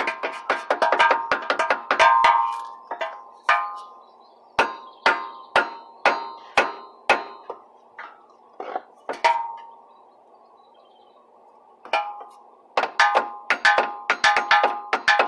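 Metal-on-metal hammer blows on a Jeep drive shaft, beating it into place until it seats, each strike ringing. A quick run of blows, then slower single strikes about two a second, a pause of about two seconds, then another quick run.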